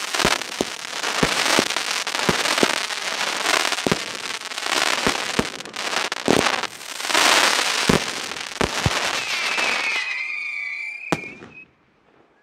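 Fireworks display: a rapid run of bangs over dense crackling, then high whistling tones and one last bang near the end before the sound dies away.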